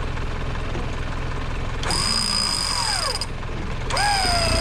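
Off-road vehicle engine running at low revs with a steady low rumble. About two seconds in, a high steady tone starts, breaks off briefly and comes back, together with a wavering whistle-like sound.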